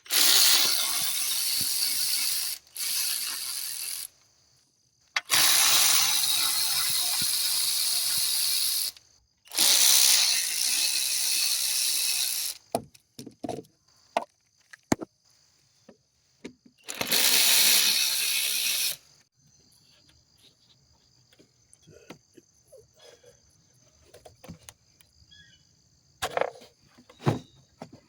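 A tool running in several bursts of a few seconds each, a whirring hiss with short mechanical clicks between the bursts, as work on the engine's intake side begins. After the last burst, only a faint high steady tone remains.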